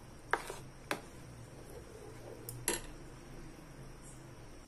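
Metal spoon clinking against a bowl as milk powder is stirred into warm milk: three sharp clinks, about a third of a second in, just under a second in, and near the three-second mark.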